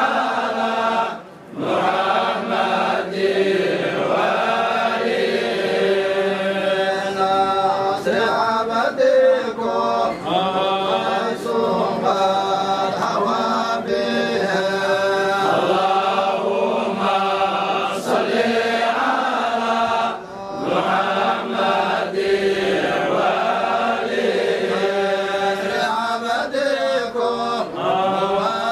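A group of voices chanting a Somali devotional salawat (praise of the Prophet) together in unison, with brief pauses about a second in and again about two-thirds of the way through.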